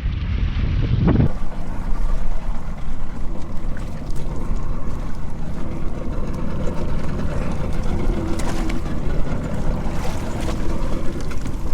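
Boat engine running steadily, with heavy wind noise on the microphone.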